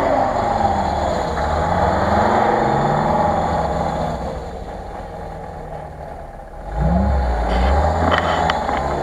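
UAZ-469 off-roader's engine revving up and down as it pulls off a dirt mound and drives away, fading for a few seconds. About seven seconds in, an engine revs up loudly again.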